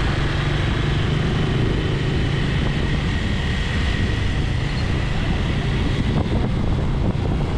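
Honda Winner V1 150cc single-cylinder motorcycle engine running at a steady pace while riding, under a continuous rush of wind and road noise.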